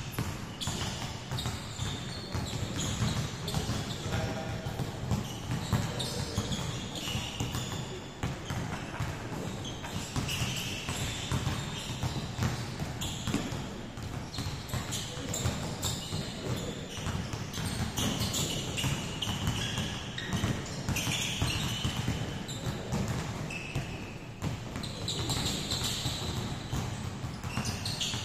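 Many basketballs being dribbled at once on a hardwood court in a large gym hall, a dense, irregular patter of overlapping bounces, with short high squeaks now and then.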